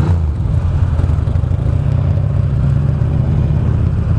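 2009 Buell Lightning Long XB12SS's air-cooled V-twin engine running steadily under way, a low, even drone, with wind and road noise over it.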